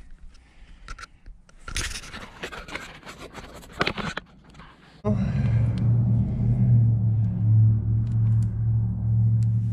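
Metal scraping and clicking as a motorcycle drive chain is handled. About five seconds in, a machine's motor starts suddenly and runs with a steady low hum.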